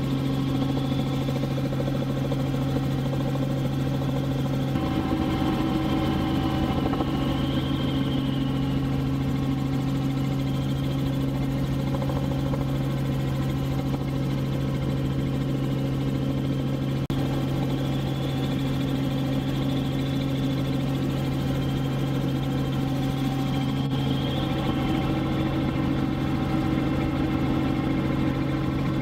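Small helicopter in cruise flight heard from inside the cabin: a steady engine and rotor drone with several fixed tones, holding an even level throughout.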